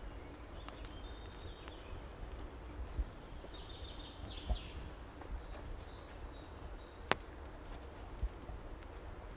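Small forest birds calling in short, high twittering phrases, several times, over the dull thuds of footsteps on a forest path. One sharp click, like a twig snapping, comes about seven seconds in.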